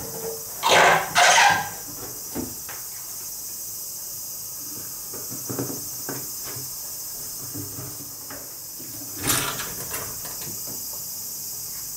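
Crickets chirping steadily in the garden. Two loud, brief noises about a second in and another a little after nine seconds rise over them.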